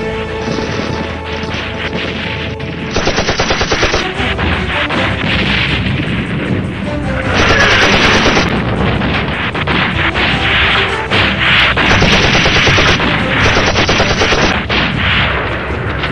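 Airsoft guns firing rapid full-auto bursts, a fast train of shots about three seconds in, with music playing behind.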